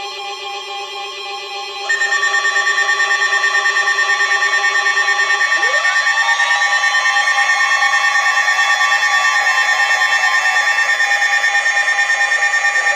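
Weather radio receivers sounding their alert alarms: several steady tones at first, then about two seconds in a louder, rapidly pulsing alarm starts, with a tone that sweeps up around the middle and begins sweeping down near the end.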